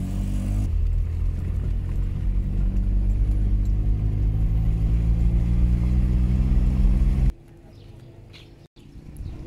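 A car engine running steadily, a low droning hum with slight shifts in pitch, that cuts off abruptly about seven seconds in, leaving a much quieter background with a few faint clicks.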